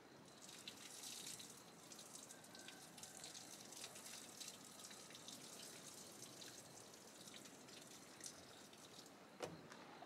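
Faint splashing and dripping water, a fine patter of small drops, with one sharper click near the end.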